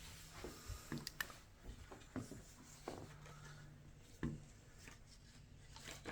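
Faint, scattered soft taps and clicks of hands handling small objects, over a low steady hum.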